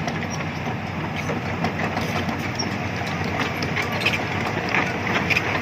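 Hitachi excavator's diesel engine running steadily, with irregular metallic clanks and rattles over the engine rumble.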